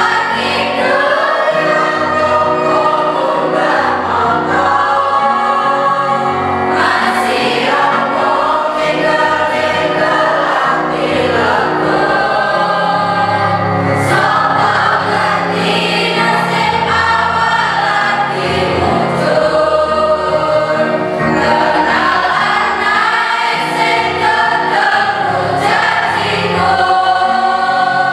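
A school choir of students singing together, several voices on different notes at once over sustained low notes.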